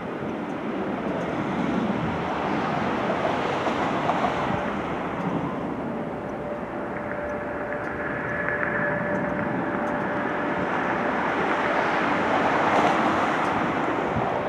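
Distant McDonnell Douglas MD-88 jet engines, rear-mounted Pratt & Whitney JT8D turbofans, running at takeoff power as a steady rushing noise with a faint whine. The noise grows somewhat louder toward the end.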